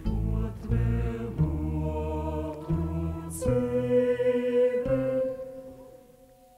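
Slow chant-like singing by several voices over a deep sustained drone, ending on a long held note that fades away near the end.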